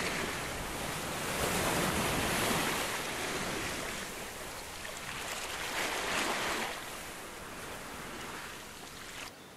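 Sea waves washing on the shore, swelling twice and easing back, then cutting off shortly before the end.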